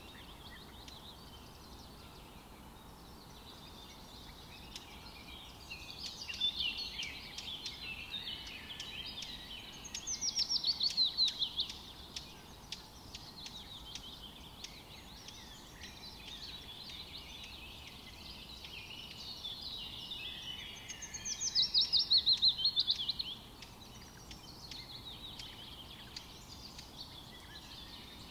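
Songbirds chirping over a faint steady hiss, with two louder trills of rapid falling notes, each about two seconds long, about ten and twenty-one seconds in.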